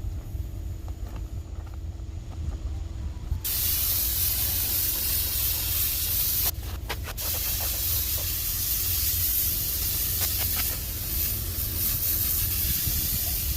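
Paint spray gun hissing as it sprays thinned gloss enamel. It starts about three and a half seconds in, stops briefly a few seconds later as the trigger is let off, then sprays steadily again until near the end.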